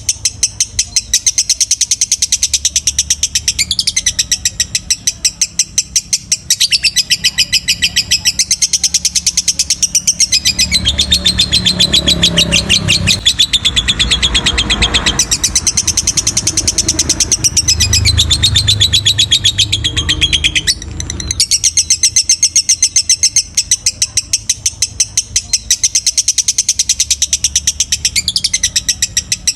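Lovebird singing one long unbroken run of rapid, high chattering notes, the long-duration 'ngekek' song kept birds are prized for, broken by a brief pause about two-thirds of the way through. A low background rumble swells under it in the middle.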